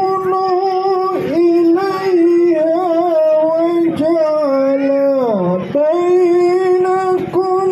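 A man's voice chanting Qur'an verses in the melismatic tilawah style into a microphone. He holds long notes with ornamented turns, slides his pitch down low about five and a half seconds in, then returns to the held pitch.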